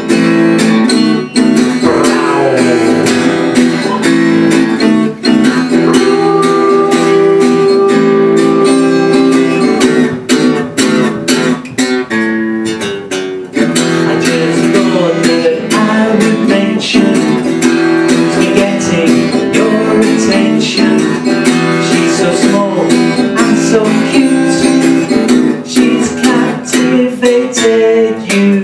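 Acoustic guitar strummed steadily, playing a song's accompaniment.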